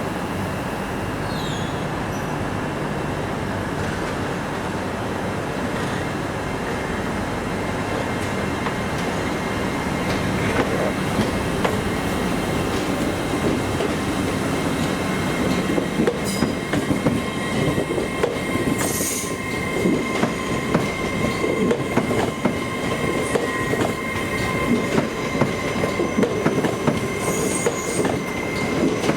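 A train moving through the station with a high wheel squeal held over steady running noise. About halfway through, its wheels start clattering quickly and irregularly over rail joints and points.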